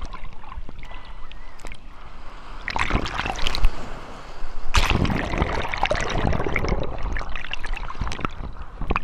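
Ocean surf churning around a camera dunked in the waves, going under and coming back up: bubbling, rushing water with splashes, loudest in surges about three and five seconds in as waves break over it.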